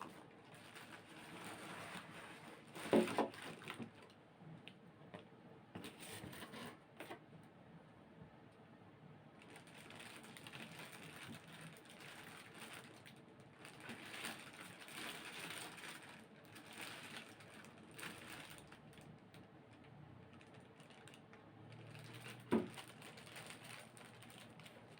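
Figure packaging being handled and unpacked: uneven rustling and scraping, with two sharp knocks, one about three seconds in and one near the end.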